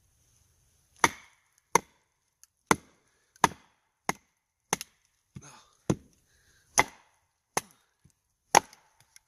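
A baton striking the spine of a Wallace Reaper knife to drive it through a pine log: about a dozen sharp knocks, roughly one every two-thirds of a second, starting about a second in.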